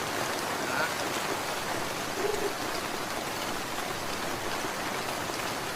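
Steady rain falling, an even hiss of many drops with no letup.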